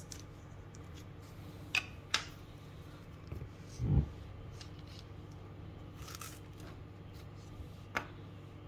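Cookie cutters being pressed into rolled sugar cookie dough and handled: a few light clicks and a dull thump about four seconds in, over a steady low hum.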